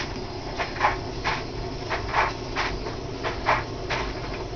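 Homemade laminar-flow Stirling engine with a glass-syringe power piston, running steadily under an alcohol-lamp flame: short chuffs in pairs, about one pair every two-thirds of a second, over a low hum.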